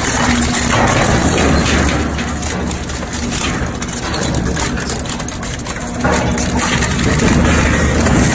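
Twin-shaft shredder running, its toothed cutter discs crushing and tearing a steel bicycle: a steady low machine hum under continual metallic crunching and cracking. The crushing gets louder again about six seconds in.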